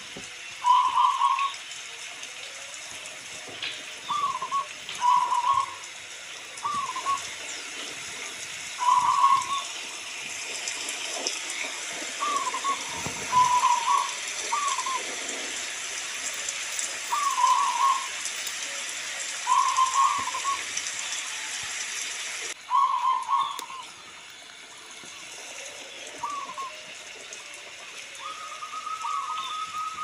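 Zebra dove (perkutut) cooing over and over in short rolling phrases, every second or two, over a steady hiss of rain. The rain grows louder in the middle and drops away abruptly about two-thirds of the way through, and a steady whistled tone sounds near the end.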